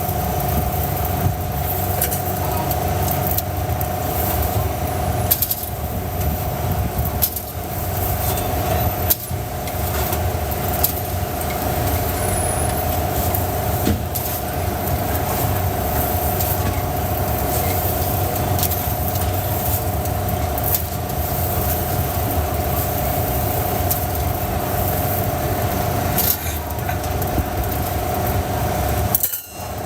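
A machine running steadily: a low rumble with a constant whine above it, dipping briefly near the end.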